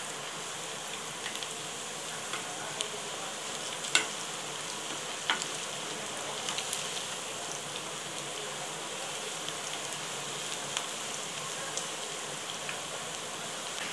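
Battered cauliflower florets deep-frying in hot oil, a steady sizzle. A slotted spoon turning the pieces knocks against the pan a few times, most sharply about four seconds in.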